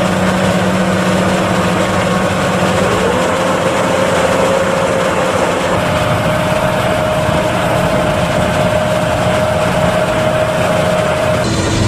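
John Deere tractors and a PTO-driven corn mill running under load, a loud steady machine din. A whining tone rises in pitch about three seconds in, then holds.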